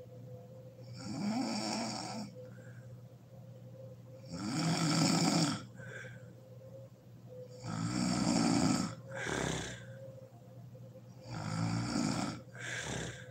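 A sleeping woman snoring: four loud snores, each about a second long and coming roughly every three and a half seconds, each followed by a short breath. A faint steady hum runs underneath.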